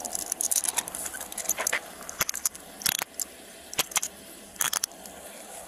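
Metal handcuffs being put on a person's wrists behind her back: a series of sharp metal clicks and rattles in several short clusters as the cuffs are handled and ratcheted shut.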